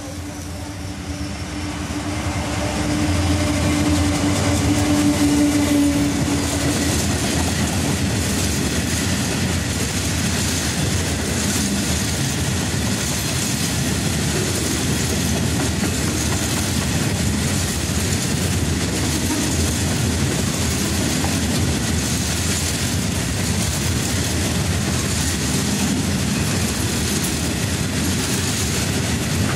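Class 66 diesel-electric freight locomotive passing close by, its two-stroke V12 diesel engine note swelling to a peak within the first few seconds. A long rake of bogie hopper wagons then rolls past with a steady clatter of wheels on the track.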